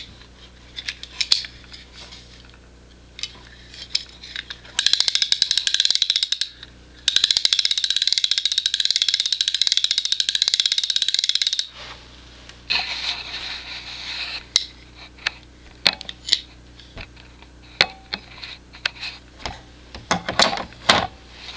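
Wey Mark II fly reel's pawl check clicking in a rapid buzz as the spool is spun by hand: two long runs in the first half, a softer shorter run after, and single clicks and knocks from the reel being handled between and after them.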